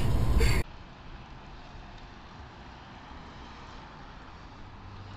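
A loud low rumble cut off abruptly about half a second in, followed by the faint, steady noise of a car on the move, heard from inside the car.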